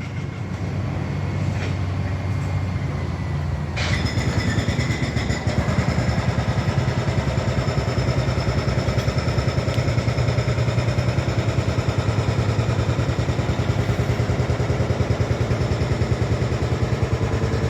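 Heavy construction machinery's diesel engine running steadily, most likely the crane moving the lifted ride section, with a quick even pulse. It gets louder and brighter suddenly about four seconds in, as if taking on load.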